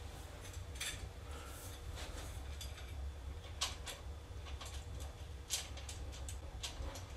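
Scattered faint clicks and taps of small hardware being handled as a 3D printer's support brace is fitted with its screw and washer, over a steady low hum.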